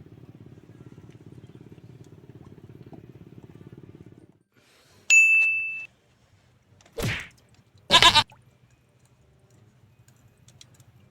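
A low steady hum stops about four seconds in. A sharp ding follows, ringing for under a second, then two short bleat-like calls about a second apart.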